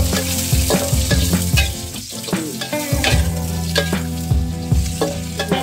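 Sliced red chilies sizzling in hot oil in a steel wok, with a metal spatula stirring them, giving repeated scrapes and taps against the pan.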